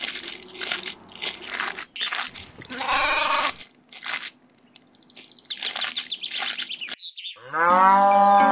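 Added farm-animal sound effects: crunching like grass being chewed, then a goat bleat about three seconds in. A run of quick high bird chirps follows, and a long, loud cow moo comes near the end.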